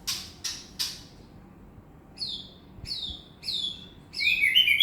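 Common hill myna calling: three short harsh noisy notes in the first second, then a run of clear whistled notes that each slide down in pitch, louder near the end.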